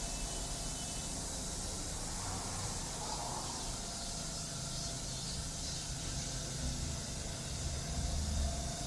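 Steady outdoor ambience: an even high hiss over a low rumble, with no distinct events.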